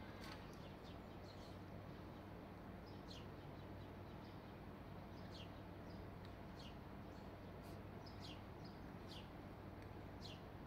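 A bird chirping faintly: short high calls that fall in pitch, about one a second, over a low steady hum.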